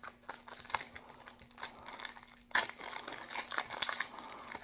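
Crackling plastic-foil wrapper of a Yu-Gi-Oh booster pack, crinkled and torn open by hand, with a louder crackle about two and a half seconds in.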